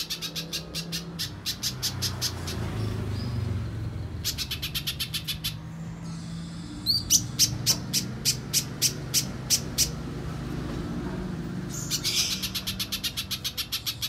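Little spiderhunter (pijantung pisang) calling in four bursts of rapid, sharp, high repeated notes, with short pauses between them, over a steady low hum.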